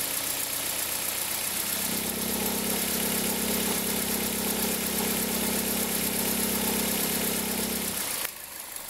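2003 Toyota Corolla engine running cold. About two seconds in, a loud, steady droning hum comes in over the engine, holds for about six seconds and then cuts off suddenly. The noise appears on a cold engine under slight load and was traced to a faulty accessory belt tensioner and its pulley bearing.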